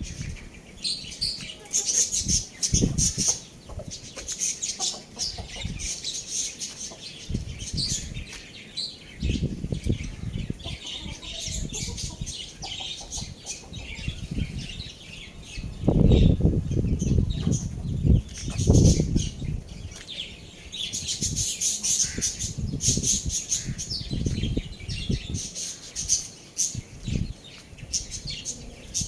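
Young roosters and chickens moving about and flapping their wings, with bursts of wing noise, loudest between about 16 and 19 seconds in. Many high bird chirps run throughout.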